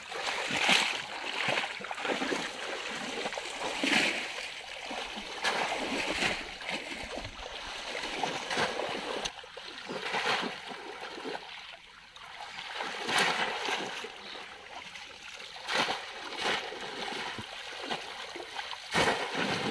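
Shallow floodwater splashing and sloshing in irregular bursts as people wade through it and bring bamboo polo fish traps down into it; the loudest splash comes near the end.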